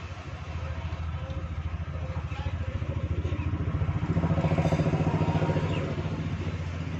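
An engine running nearby: a low, rapidly pulsing drone that swells about four seconds in and eases off near the end.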